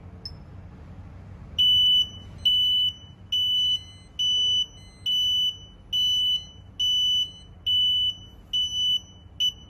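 Wireless barbecue thermometer's target-temperature alarm beeping: about ten high, steady beeps of roughly half a second each, a little faster than one per second, signalling that the probe has reached the set temperature. The last beep is cut short near the end.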